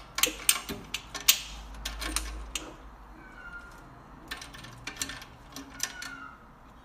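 A cat pawing at the metal latch of its wire cage door: irregular, sharp metallic clicks and rattles, in one run over the first two and a half seconds and another after a pause of about a second and a half.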